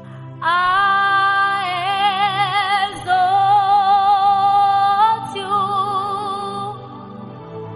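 A woman singing a slow worship song in long held notes with wide vibrato, over a sustained instrumental accompaniment. She breaks briefly about three seconds in, and the voice fades near the end, leaving the accompaniment.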